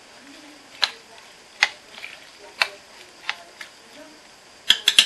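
Short, sharp clicks and knocks of stirring against the ceramic crock of a slow cooker holding lentils, water and chopped vegetables: single knocks about once a second, then a quick run of three near the end.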